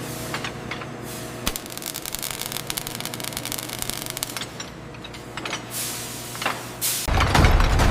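Heavy factory machinery running with a steady hum, a stretch of rapid clicking and crackling in the middle, two short hisses, and a loud low rumble that starts near the end.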